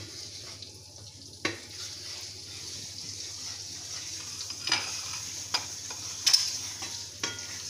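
Butter melting and sizzling in a non-stick frying pan, with a steady high hiss. A wooden spatula stirs it, scraping the pan and knocking against it several times.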